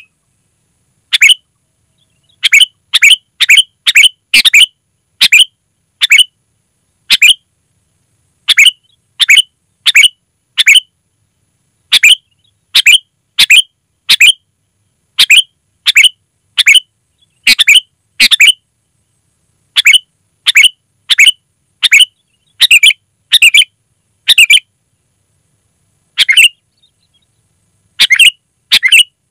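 Sooty-headed bulbul (kutilang) calling loudly: short, sharp chirps given one to two a second in irregular runs, with a short gap near the end.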